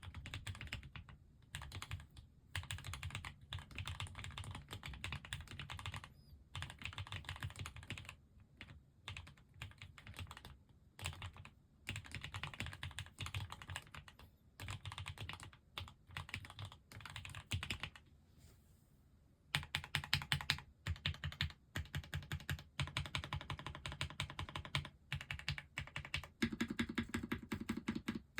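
Typing on a KBDfans Agar custom mechanical keyboard with Gateron Pro Ultra Glory Yellow linear switches: rapid keystrokes in runs separated by short gaps. A pause comes a little past the middle, and the keystrokes after it are louder.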